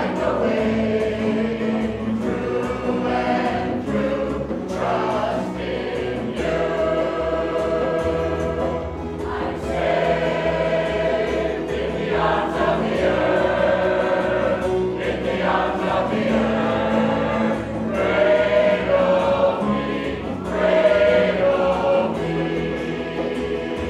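Mixed choir singing a looping devotional chant in several parts, with guitar accompaniment.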